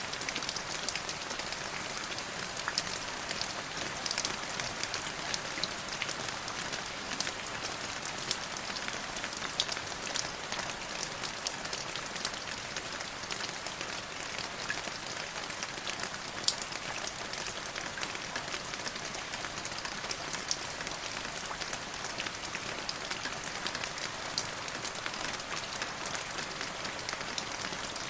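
Steady rain falling in a forest, a constant patter with many separate drops striking leaves and ground.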